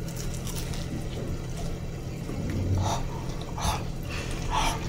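A crisp air-fried wheat samosa crunching as it is bitten and chewed: three short crunches, the first about three seconds in, over a steady low hum.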